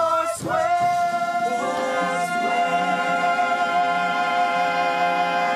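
Several voices singing together, holding one long chord for about five seconds.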